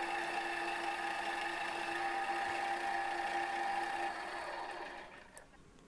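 Milling machine spindle running steadily with a whine, driving a centre drill that spots bolt-hole positions in an aluminium bar. About four seconds in the sound fades away, nearly gone by the end.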